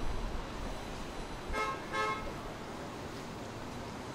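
A vehicle horn toots twice in quick succession, two short notes about a second and a half in, over a steady background hiss.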